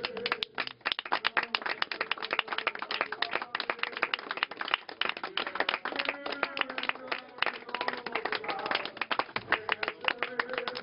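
Rapid, irregular clicking and clattering, dense and uneven, with faint voices underneath.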